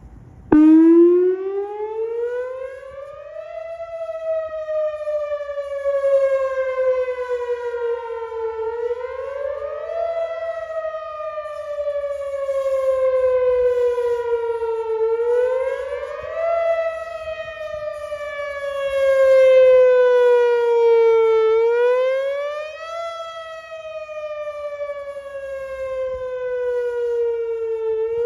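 Whelen WPS-4004 electronic outdoor warning siren starting up about half a second in and sounding a test tone that cycles. Each cycle rises quickly in pitch over about a second and a half, then falls slowly over about five seconds, repeating roughly every six seconds.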